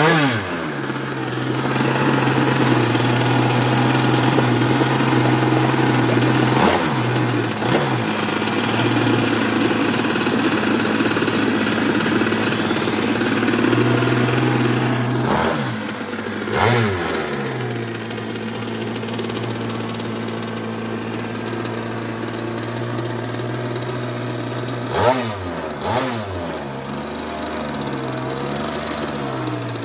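38cc two-stroke grass-trimmer engine with a homemade sheet-metal expansion chamber, running in a homemade RC catamaran boat. It runs steadily, broken by several short revs that rise and drop back. It grows quieter after about 17 seconds as the boat pulls away.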